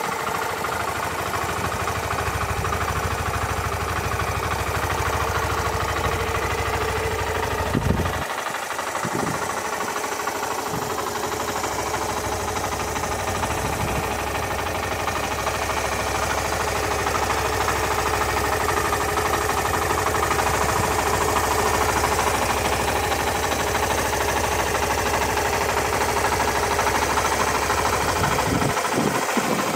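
Suzuki RV125 Van Van's air-cooled single-cylinder four-stroke engine idling steadily, with one short knock about eight seconds in.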